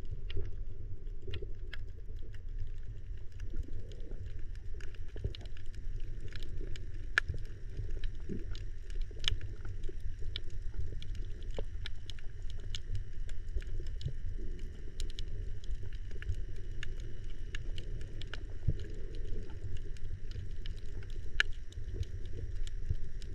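Underwater sound picked up by a camera drifting along a coral reef: a steady, muffled low rumble of moving water, with scattered sharp clicks and crackles throughout.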